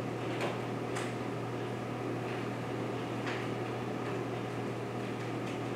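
Steady low hum and fan-like whir under room noise, with a few faint ticks.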